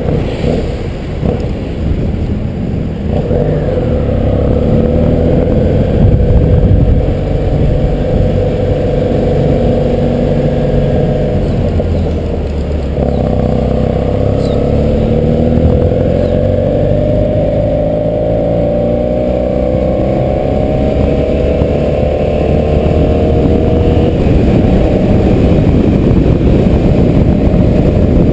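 BMW F800GS parallel-twin engine running under way, with wind and road noise on the camera. About halfway through, the engine note drops briefly, then climbs steadily in pitch for about ten seconds as the bike accelerates.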